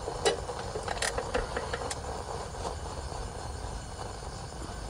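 A few light metal clinks as a pot of cooked rice is handled and taken off the camp stove, over a steady low rumble.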